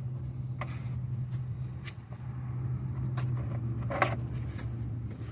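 A vehicle engine running with a steady low hum, and a few light clicks and clinks of parts or tools being handled, the sharpest about four seconds in.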